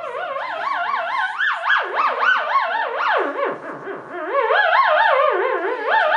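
Theremin played by hand: a single wavering tone with a wide vibrato of about four wobbles a second, sliding up and down in pitch. A little past the middle it swoops down low, then climbs back up.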